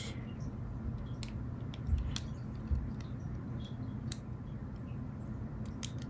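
A few scattered light clicks and soft taps of small parts and tools being handled on a work surface, over a low steady hum.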